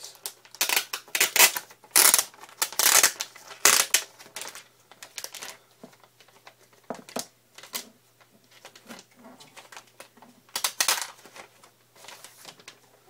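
A cardboard product box being opened and handled: a quick run of rustles, scrapes and knocks of cardboard and packaging, densest in the first five seconds, then sparser and quieter, with another short burst near the end.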